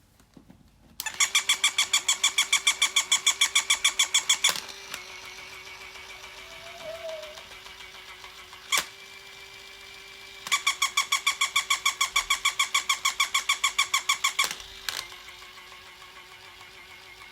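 A battery-powered toy dog runs with a steady motor hum and gives two runs of rapid, very regular electronic yapping, about eight pulses a second and about four seconds each. Sharp clicks come between the runs.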